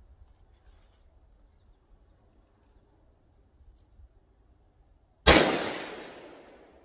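A single shot from an FN SCAR 17S .308 battle rifle about five seconds in: a sharp crack followed by a long echo that dies away over a second and a half.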